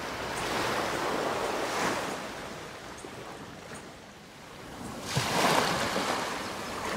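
Sea waves washing in and breaking against a rocky jetty. The swell rises and falls, with the loudest wave breaking about five seconds in.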